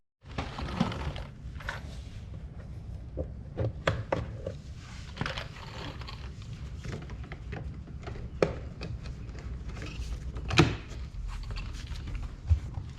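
Scattered clicks, knocks and thunks of hands working in a car door while connecting a new door speaker's wiring, with a few louder thunks near the end.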